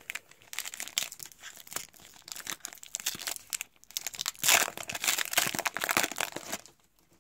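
Wrapper of a Topps WWE trading card pack crinkling as it is torn open by hand, a dense crackle that is loudest a little past halfway and stops just before the end.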